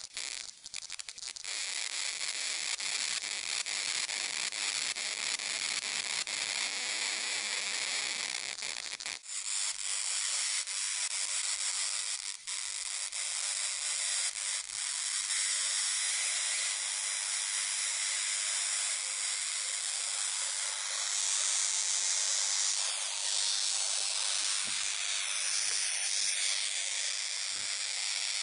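DIY plasma speaker's high-voltage arc discharge running steadily, a continuous high-pitched hiss, with the circuit tuned to resonance.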